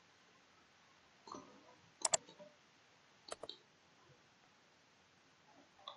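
Computer mouse button clicks, in two quick pairs a little over a second apart, with a fainter noise just before the first pair.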